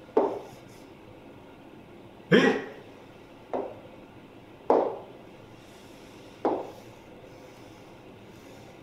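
A man's short, clipped vocal sounds like "n" and "oh", five of them, each a second or two apart and quickly fading.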